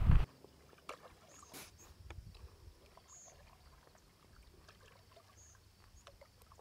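Guitar music cuts off abruptly a fraction of a second in. After that there is only faint outdoor sound by calm water: scattered light drips and clicks, with a few short, high chirps.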